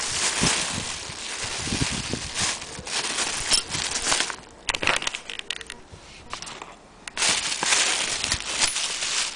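A clear plastic bag crinkling and rustling as it is handled, in spells with quieter gaps in the middle.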